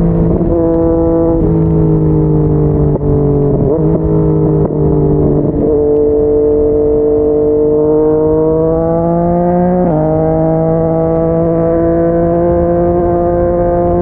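Yamaha MT-09's inline-three engine through a Yoshimura R55 slip-on exhaust, heard from the rider's seat at highway speed. The engine note steps and dips several times in the first half as the bike slows. It then rises steadily under acceleration, drops sharply about ten seconds in at an upshift, and rises again.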